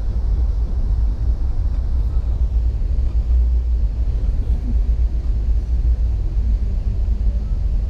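Steady low rumble of a passenger train running at speed, heard from inside the carriage.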